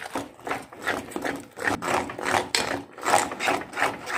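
Wire hand whisk beating thick muffin batter in a glass bowl: rhythmic scraping strokes, about four a second.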